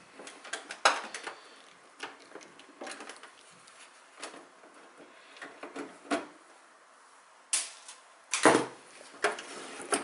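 Scattered clicks, taps and scrapes of hard drives, cables and a screwdriver being worked inside a Dell XPS desktop's steel case. There is a sharp click about a second in and a run of louder clunks and scrapes in the last few seconds.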